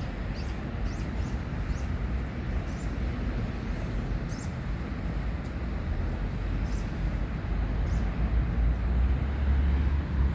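Steady low rumble of outdoor background noise, heaviest in the deep bass and swelling a little near the end, with faint short high ticks now and then.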